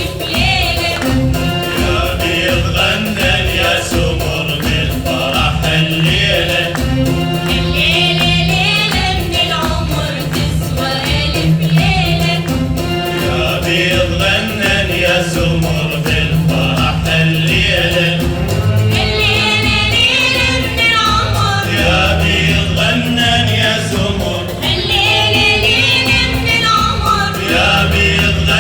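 Mixed choir singing an Iraqi heritage song in unison, with instrumental accompaniment and a steady percussion beat.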